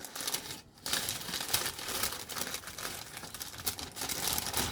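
Packaging being unwrapped by hand: irregular crinkling and rustling of wrapping, with a brief pause just under a second in.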